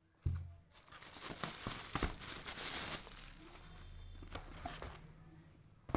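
Clear plastic shoe bag crinkling as a sneaker is pulled out of it, with a thump just after the start. The crinkling is loudest for the first three seconds, then dies down to quieter rustling, and a sharp knock comes near the end.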